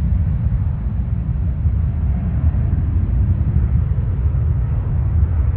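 Jet engines of a Jetstar Airbus A320-family airliner rolling down the runway away from the microphone: a steady, deep rumble with little high end, as the loud roar of its passing has just faded.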